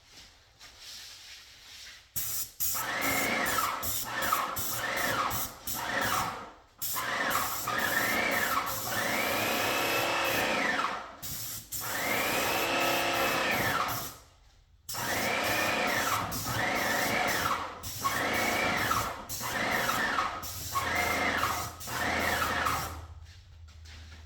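Electric paint sprayer spraying in a series of trigger pulls, some short and some about two seconds long. Each burst is a hiss with a whine that rises at the start and falls away as the trigger is released.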